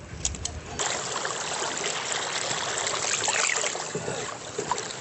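Water rushing and splashing, a steady hiss that starts about a second in, after a brief low rumble.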